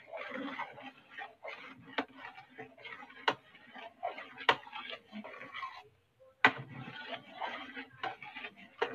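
Metal spoon stirring thick rice porridge in an aluminium pot: repeated scraping and slopping strokes, with about four sharp clinks of the spoon against the pot.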